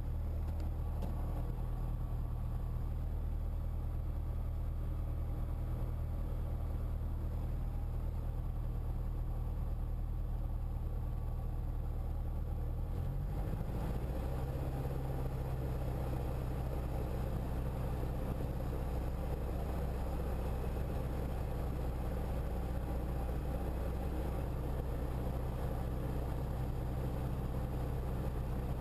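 Piston engine and propeller of a Diamond single-engine light aircraft idling, heard from inside the cockpit. About 13 seconds in, the throttle is advanced: the engine note rises over about a second and then holds steady at a higher speed.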